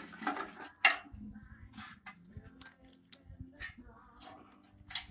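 Light clicks and clatter of a just-removed automotive wire harness being handled, its plastic plugs and metal clips knocking together, with one sharp clack about a second in.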